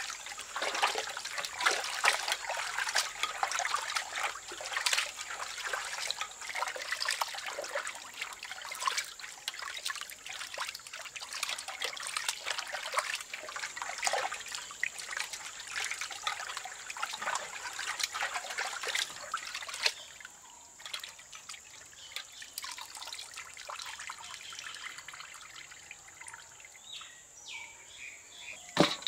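Raw chicken pieces being washed by hand in a large aluminium pot of water: splashing, sloshing and squelching as the meat is rubbed and squeezed, busy for most of the time and lighter in the last third. One sharp knock near the end.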